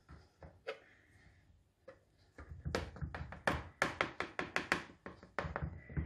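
Knife cutting through a baked cornmeal cake and tapping on the bottom of a metal baking pan. After about two seconds it becomes a quick run of sharp taps, about five a second.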